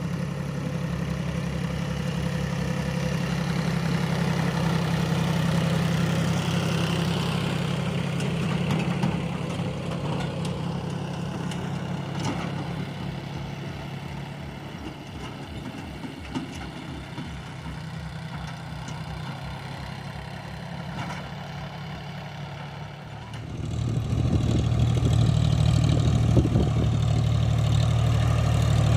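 Heavy diesel engine running steadily, then rising in load and getting louder about three-quarters of the way through.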